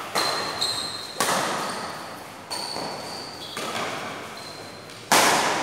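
Badminton rackets striking a shuttlecock in a rally, five sharp smacks roughly a second apart, the last the loudest, each echoing in a large hall. Short high shoe squeaks on the court floor come between the hits.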